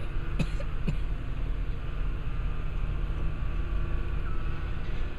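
Engine of a rail-mounted tie-handling crane running with a steady low hum, with two short sharp knocks in the first second.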